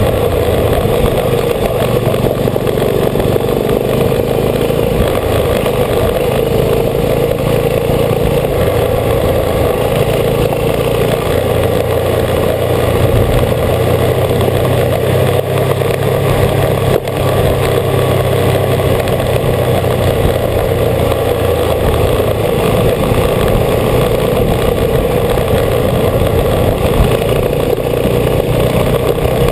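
Vintage motorcycle engine running steadily under way, recorded from a camera on the bike, with a constant rush of wind and road noise. The engine note shifts about a third of the way through.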